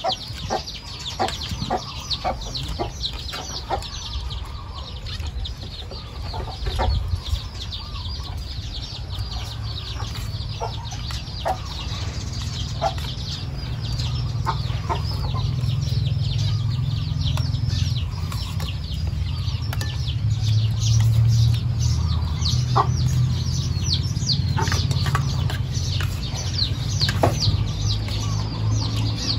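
Chickens clucking with a steady stream of short high chirps, and now and then the clink of a metal spoon on a ceramic plate. A low hum grows louder about halfway through.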